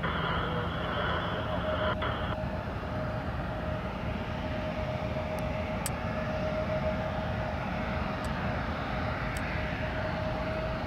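Airplane engines running steadily at an airfield, with a constant tone held through the engine noise.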